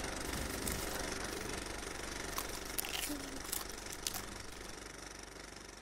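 Projector running with a steady mechanical hum and clatter, a few sharp clicks scattered through the middle; the sound fades away toward the end.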